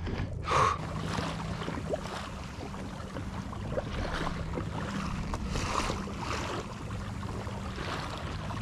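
Seawater washing and splashing against the hull of a fishing kayak moving through small waves, with a louder splash about half a second in, over a low steady hum.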